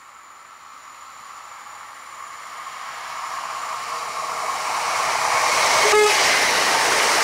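A Newag 31WE Impuls electric multiple unit approaching and passing at speed, its wheel and running noise growing steadily louder as it closes in. A brief horn blast sounds about six seconds in as it reaches the crossing, the RP1 warning signal.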